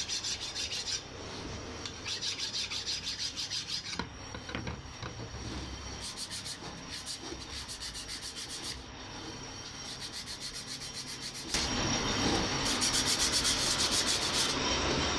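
A brake disc being turned on a brake lathe: the cutting tool scraping across the spinning rotor with a rhythmic rasp of about four beats a second, getting louder about eleven and a half seconds in.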